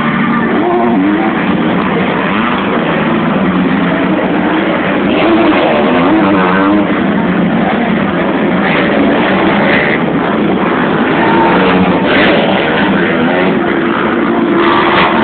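Several motocross bikes racing, their engines revving up and down as they pass and overlap.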